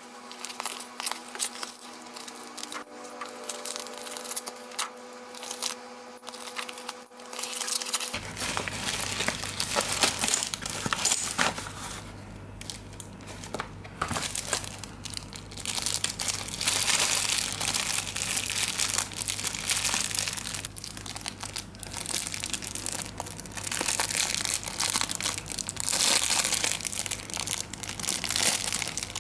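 Packaging crinkling and rustling as it is handled and opened by hand, with scattered small clicks and tearing.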